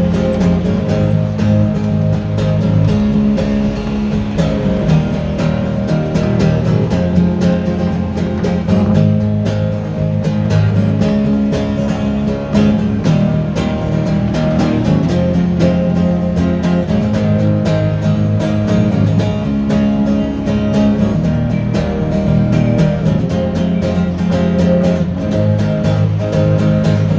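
Live acoustic guitars strumming chords in an instrumental break of a song, with no singing.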